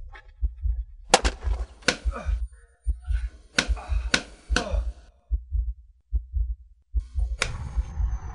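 Heartbeat sound effect: low double thumps repeating steadily, with about six sharp whooshing hits laid over it, the sound effects of a fight.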